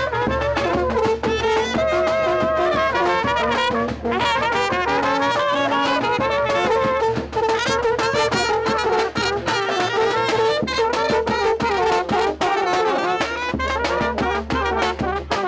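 Balkan brass band playing a tune, a trumpet leading over tubas, with a steady beat underneath.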